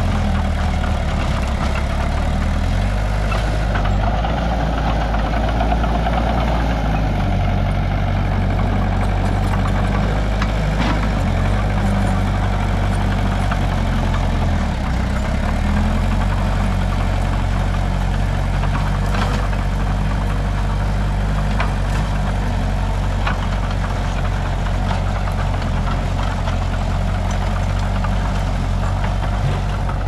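Small crawler bulldozer's diesel engine running steadily under load while pushing and levelling earth, its pitch dipping and recovering a few times as the load changes, with occasional sharp clanks.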